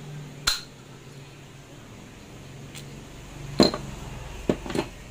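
Metal parts of a dismantled impact driver, its hammer assembly and aluminium gear housing, clinking and knocking as they are handled and set down on the workbench: one sharp knock about half a second in, then three more between three and a half and five seconds, some with a short metallic ring.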